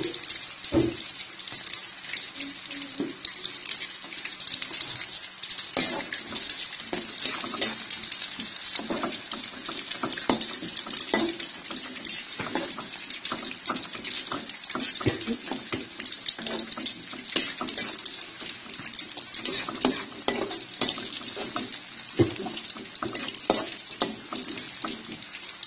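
Sliced shallots and garlic sizzling in hot oil in a wok, with steady frying hiss. A spatula scrapes and knocks against the metal pan many times as the aromatics are stirred.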